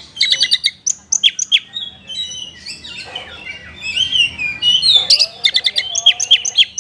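Oriental magpie-robin (kacer) singing a loud, fast, varied song of sharp whistles, downslurred notes and rapid stuttering trills, its song filled with mimicked phrases of other birds.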